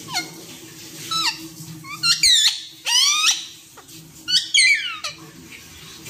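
Pet parrot giving a run of loud, harsh calls, about five, most sweeping sharply downward in pitch, with a longer cluster near the middle and another near the end.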